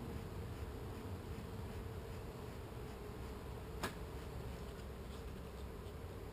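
Honey bees buzzing in a steady cloud around a hive a bear has broken open, the colony agitated and defensive. A single sharp tick about four seconds in.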